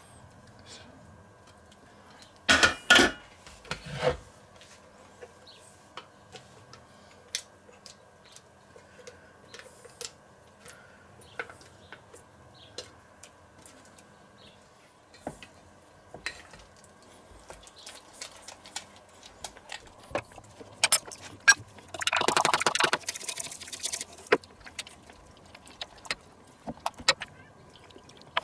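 A spatula and metal utensils clanking and scraping against stainless steel bowls. There are a few loud clanks a few seconds in, scattered small clicks, and later about two seconds of brisk stirring in the bowl.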